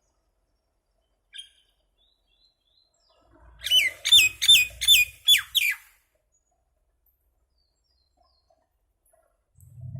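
Common myna calling: a single short note, then about two seconds later a quick run of about six loud whistled notes, each dropping in pitch, about three a second. A low hum starts near the end.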